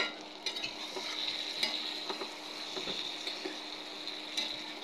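Chicken pieces in spiced oil sizzling steadily in a nonstick pan while a spatula stirs and turns them, with scattered light clicks and scrapes of the spatula against the pan.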